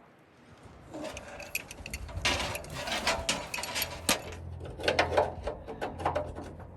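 Metal ratchet clicking in quick, irregular runs, with a few sharper clanks, over a low hum; it starts about a second in.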